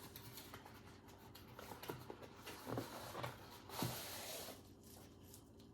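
Faint rustling and light knocks of packaging being handled as a box is opened, with a brief hissy rustle about four seconds in.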